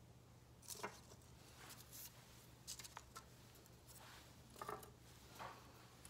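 Faint, brief rustles and light taps as twigs and dried plant pieces are set down on a surface, about half a dozen in all, over a low steady hum.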